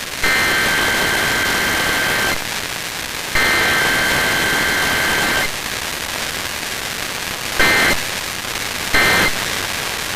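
Emergency Alert System SAME digital data bursts over radio static: two long bursts of the header about a second apart, then two short end-of-message bursts near the end.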